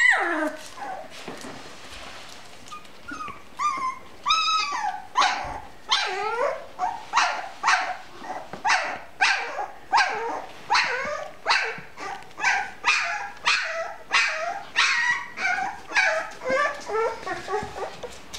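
Bouvier des Flandres puppy crying in short, high-pitched yelps. A few scattered calls at first, then a steady run of about two yelps a second from about five seconds in.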